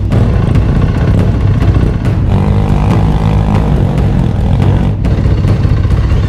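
Dirt bike engine running loudly under throttle, its pitch shifting up about two seconds in.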